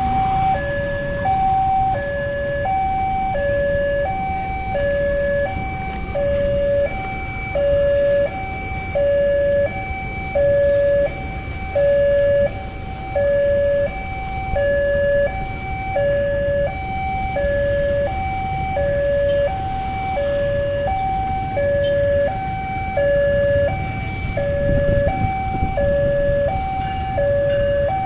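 Electronic two-tone warning alarm sounding steadily, a high tone and a low tone alternating at an even pace, about one high-low cycle every second and a bit. A low rumble swells briefly underneath near the end.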